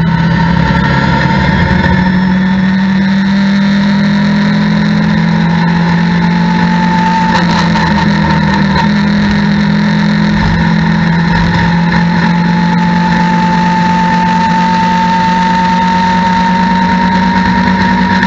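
Mitjet race car engine pulling hard under full throttle in fourth gear, heard from inside the cockpit. Its note climbs slowly and steadily as the car gathers speed.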